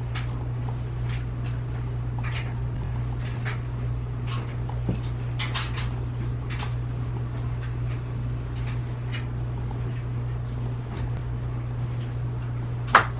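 Steady low hum of a running clothes dryer, with scattered light plastic clicks and taps from laundry detergent being measured into its cup. A sharper click comes near the end.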